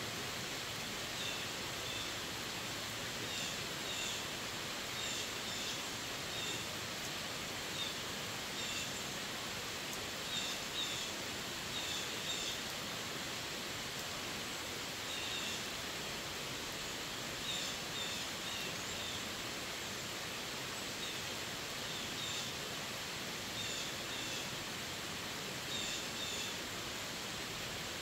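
Steady rain falling on forest leaves and a wet paved road, an even hiss, with short high chirps here and there every second or two.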